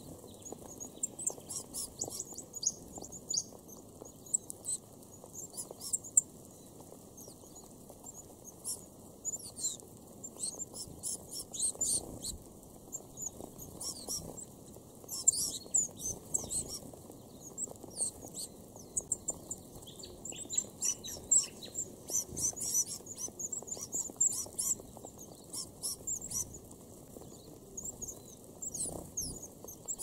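A feeding flock of red-browed finches calling. Many short, high-pitched cheeps and thin squeaks come scattered and overlapping all through.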